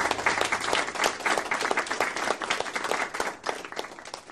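Applause, a dense patter of clapping that fades away over the last second or so.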